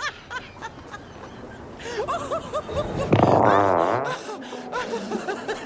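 A drawn-out, wavering fart sound effect lasting about a second, starting about three seconds in, with snickering laughter and background music.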